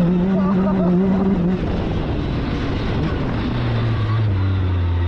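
Yamaha YXZ1000R side-by-side buggy's three-cylinder engine running. It holds a steady pitch for about a second and a half, goes rough and noisy, then settles into a lower, steady drone in the last second and a half as the engine slows.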